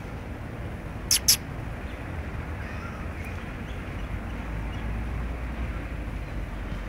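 Steady outdoor background noise with a low rumble that grows about four seconds in, broken about a second in by two sharp clicks a fraction of a second apart.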